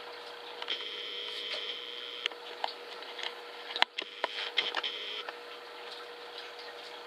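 A camera's zoom motor whining at one steady pitch for about a second and a half, then again briefly about four seconds later, over a faint steady hum. A few light clicks and taps fall between the two whines.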